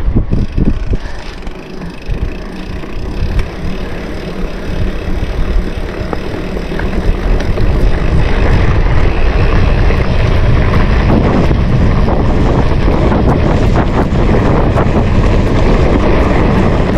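Wind noise on the microphone of a mountain bike in motion, with tyre rumble and scattered clicks and rattles from the bike on rough ground. It becomes louder and steadier about eight seconds in.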